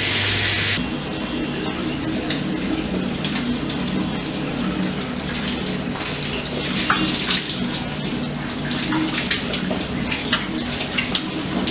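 Single-lever basin tap running into a ceramic sink: the water gushes loudly for about a second after it is opened, then runs more quietly with scattered splashes.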